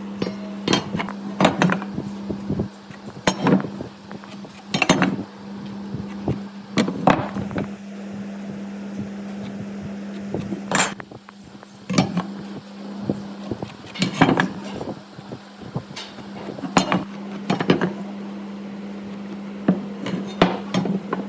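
Irregular sharp knocks and clinks of workshop tools and parts being handled and struck, some in quick clusters, over a steady hum.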